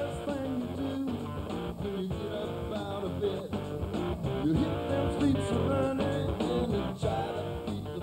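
Blues-rock band playing, with electric guitar over bass and a steady drum beat.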